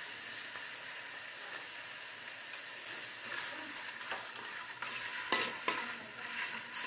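Chopped onions and green capsicum sizzling in a large aluminium pot. About three seconds in, a metal spoon starts stirring the sauce through them, scraping against the pot a few times.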